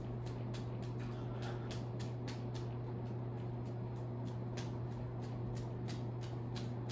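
52-inch BRTLQ ceiling fan running on high speed: a steady low hum with rapid, repeated ticking or squeaking, several times a second, which the owner puts down to the fan wobbling and the ceiling box squeaking.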